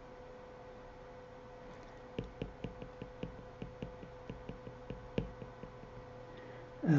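An Apple Pencil tip tapping and clicking lightly against an iPad's glass screen while drawing: a run of small, irregular ticks, about four or five a second, that starts about two seconds in and stops about halfway through the final second and a half.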